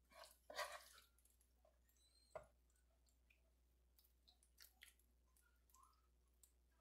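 Faint scrapes and light clicks of a wooden spoon spreading cooked ground meat over lasagna noodles in a glass baking dish, with a sharper click about two and a half seconds in, over near silence.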